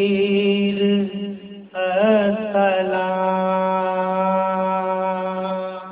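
A man's voice chanting a soz-o-salam lament: a sung phrase, a brief break just under two seconds in, then one long held note.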